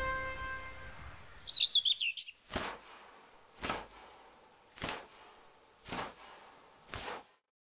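A held musical chord fades out, and about a second and a half in a small bird gives a short burst of high chirps. Then come five short, evenly spaced strokes, about one a second.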